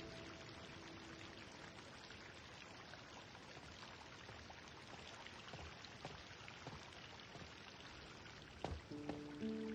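Water pouring steadily from three wall spouts into a stone trough, a faint, even splashing. A soft low thump comes near the end.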